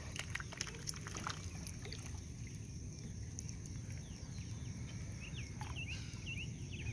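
Mallard ducklings peeping, a few short high peeps in the second half, over small clicks and trickles of water from the ducks dabbling and pecking at food on the surface.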